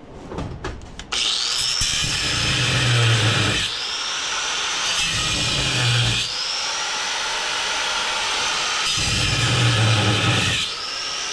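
Power tool cutting into the NP241C transfer case's cast-aluminium housing to relieve the pressed-in ring gear. It starts suddenly about a second in after a few light ticks, and its whine dips and climbs back up in pitch three more times as the cut goes on.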